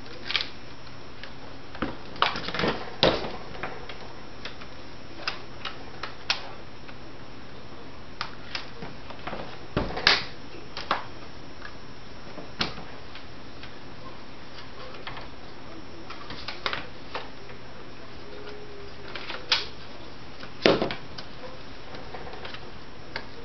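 Scattered, irregular light clicks and knocks of a plastic laptop being handled, with a few louder knocks.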